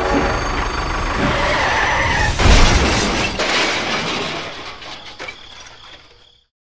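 A vehicle crash sound effect for a toy tractor hitting a toy train. Running engine noise is cut off by a loud smash about two and a half seconds in, followed by shattering and breaking noise that dies away over the next few seconds.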